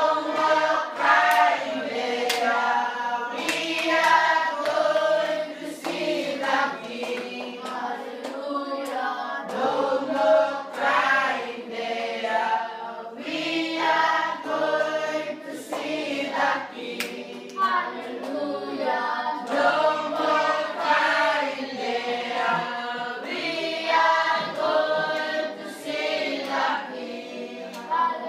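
A group of children singing together, many voices holding sustained notes in a steady song, with occasional sharp clicks.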